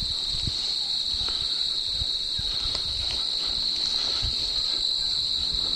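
Steady high-pitched chorus of insects, likely field crickets, trilling without a break, with scattered soft low thumps.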